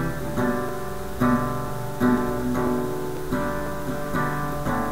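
Acoustic guitar strumming chords in a steady rhythm, with no voice, as an instrumental break in a song.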